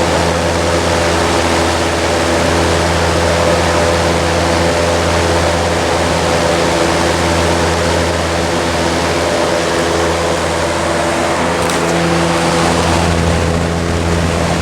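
Vintage General Electric W-26 box fan with five plastic blades running on high: a steady rush of air over a constant low motor hum. The fan is shaking quite a bit at this speed.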